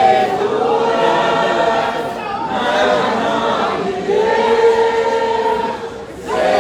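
A group of voices singing a hymn together in long held notes, with a short break in the singing near the end.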